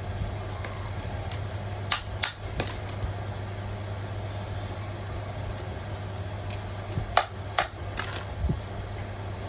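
Electric fan motor running with a steady mains hum. Two groups of three sharp clicks or taps cut through it, one about two seconds in and one about seven seconds in.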